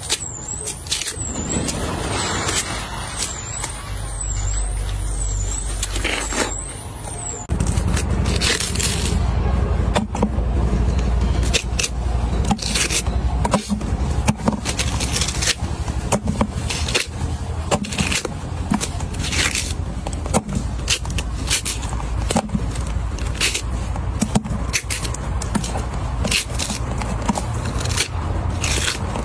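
Watermelon rind being torn and snapped off by hand: a run of crisp cracks and crunches over a steady low rumble, which gets louder about seven seconds in.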